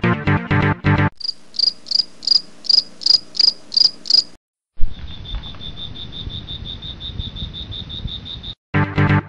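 Cricket chirping: a run of short high chirps, about three a second. After a brief pause it becomes a steady, rapidly pulsing high trill. Music with a steady beat plays briefly at the start and returns near the end.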